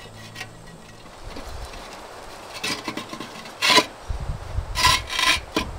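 Ceramic parts inside a small kamado grill's firebox scraping and grating against each other as they are handled, in several short rasping strokes in the second half, the loudest about two-thirds through.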